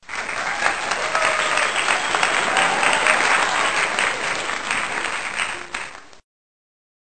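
Crowd applause, many hands clapping in a dense patter, starting abruptly and cut off sharply about six seconds in: an applause sound effect laid over the ending.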